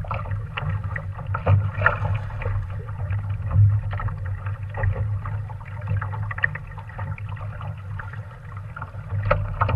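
Water slapping and splashing against a small sailing dinghy's hull as it moves along, in short irregular splashes over a steady low rumble.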